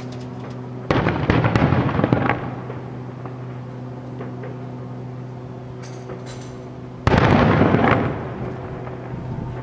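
Aerial firework shells bursting, heard from a distance: two sudden loud bursts about six seconds apart, each a crackling rumble that fades over a second or so, with quieter pops between and a steady low hum underneath.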